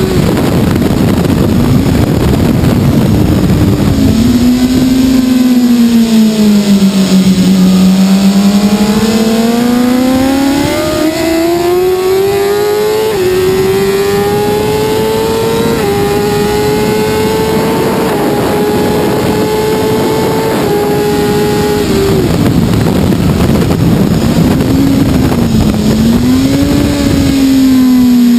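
BMW S1000RR superbike's inline-four engine at high revs, heard from on board with wind rush. Its note sinks and climbs back in the first third, rises in several steps, drops away about three-quarters through, then wavers and climbs again near the end.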